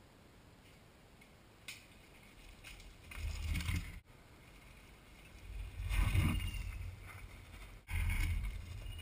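Mountain bike riding hard along a dirt trail: tyres rushing over dirt and dry leaves with low wind rumble, in three short surges about three, six and eight seconds in, the first two cut off abruptly.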